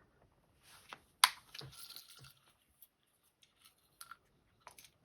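Small metal lock parts and a thin shim being handled at a lock cylinder: scattered light clicks, one sharp click about a second in, followed by a brief rustling scrape.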